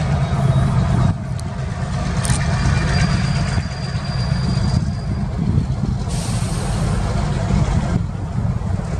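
Union Pacific diesel locomotives rumbling under power as they pull a local freight slowly, with wind buffeting the microphone. A short hiss comes about six seconds in.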